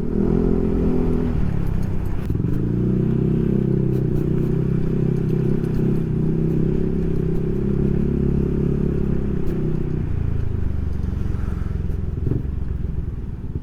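Yamaha NMAX scooter's single-cylinder four-stroke engine running through a Proliner SR Neo Silent aftermarket exhaust while riding, a low, steady exhaust note. The revs dip about a second in, pick up and hold steady, then ease off near the end.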